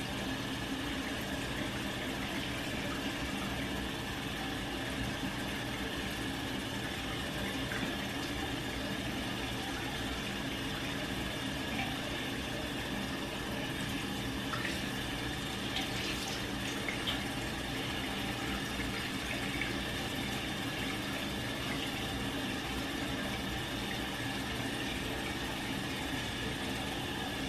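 Bathroom sink tap left running, a steady rush of water into the basin.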